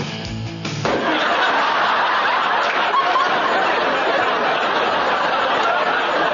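Large live audience laughing, a steady wash of laughter that swells in about a second in as a drum-backed music cue ends.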